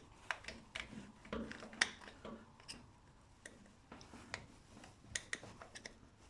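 Irregular light clicks and taps of hand tools working at a split pin in the tractor's starter linkage, about a dozen in all, the sharpest about two seconds in.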